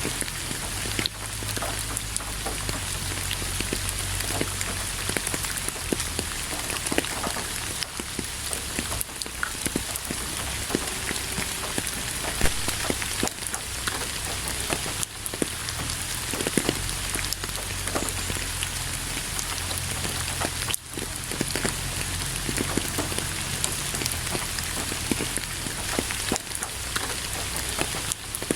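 Steady rain falling, with many individual drops pattering and ticking on surfaces close by.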